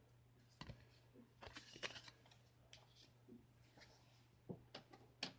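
Faint handling of trading cards: scattered soft clicks and rustles as cards from a booster pack are slid and sorted by hand, over a faint low hum.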